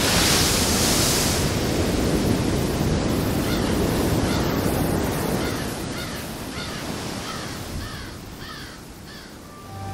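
Surf breaking and washing up a sandy beach. From about three and a half seconds in, a bird calls over it in a run of short arched calls, about two a second.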